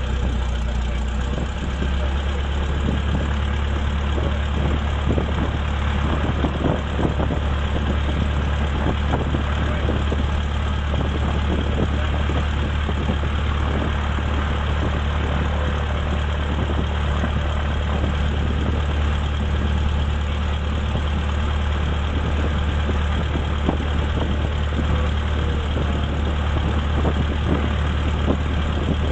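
Cessna 152's four-cylinder Lycoming engine and propeller running steadily at low power after start-up, heard from inside the cabin as an even low drone.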